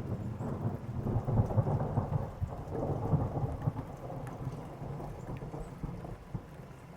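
Rolling thunder rumbling, loudest a second or two in and dying away over the next several seconds, with rain falling.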